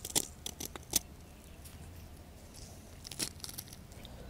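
Green peas being crushed in a metal garlic press, skins and all: a few sharp clicks and crackles in the first second and again about three seconds in.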